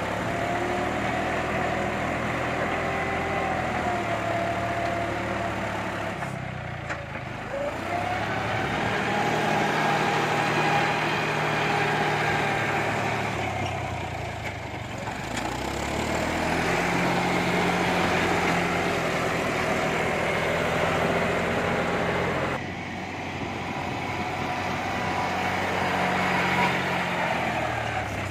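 John Deere 5310 tractor's three-cylinder diesel engine running under load while levelling soil. The revs rise and fall several times, and a whine follows the engine speed.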